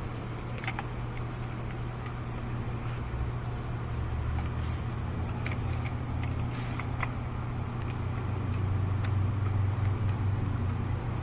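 Steady low mechanical hum with scattered light metallic clicks and taps, from a socket and extension turning spark plugs in by hand until they seat in a V8's cylinder head.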